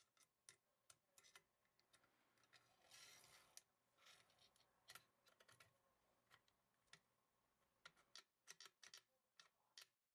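Faint metallic clicks and taps as parts of an M+M M10X rifle are handled and fitted together, with a short scrape of metal sliding over metal about three seconds in.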